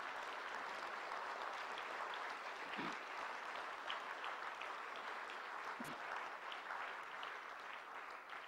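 Audience applauding, a steady wash of clapping that tapers off near the end.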